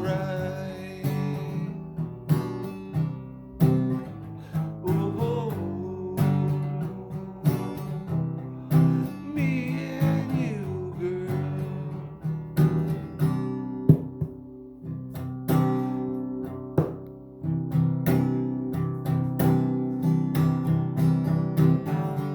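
Acoustic guitar strummed and picked in an instrumental passage, with no singing.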